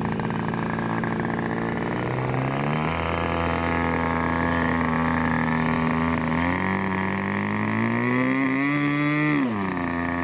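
A motor running steadily. Its pitch rises about two and a half seconds in, climbs further in the second half, then falls away sharply near the end as it slows.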